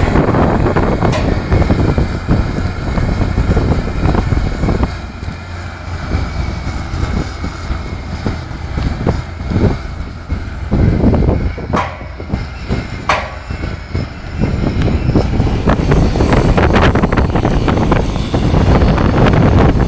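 Timberjack forestry machine running, a heavy, continuous mechanical rumble, with two sharp clanks a little past halfway.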